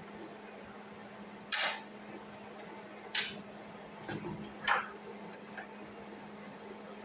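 Sharp clicks and scraping clacks from hands working the wire-feed mechanism of a Hobart Handler 120 welder while loading a spool of flux-core wire, about five in a few seconds. A steady low hum runs under them.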